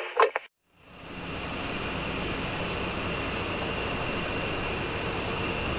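Steady rumble and hiss of an idling vehicle engine with outdoor night ambience. It fades in about a second in and cuts off suddenly at the end.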